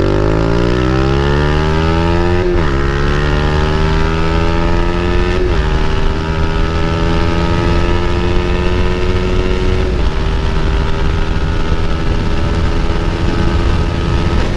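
Motorcycle with an Akrapovic aftermarket exhaust accelerating hard through the gears: the engine note climbs and drops sharply at three upshifts, then holds a steady pitch.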